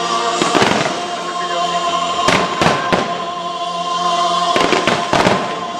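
Aerial fireworks shells bursting with sharp bangs in three clusters about two seconds apart, over a pyromusical soundtrack of music with long held tones.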